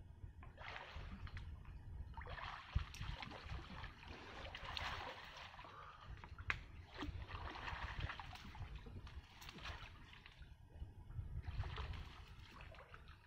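River water sloshing and splashing in uneven bursts as a man wades chest-deep through it, over a steady low rumble.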